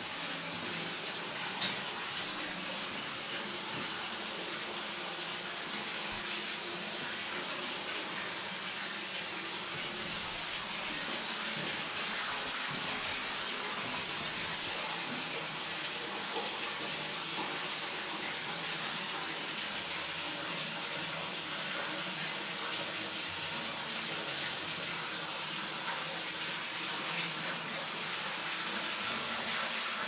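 Steady rush of running water inside a limestone cave.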